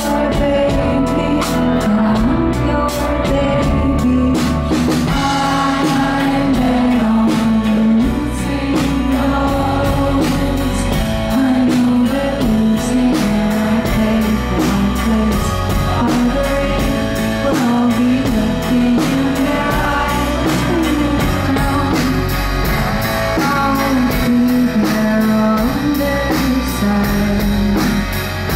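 A woman singing live over a band of electric guitar, bass and drums, the drums keeping a steady beat.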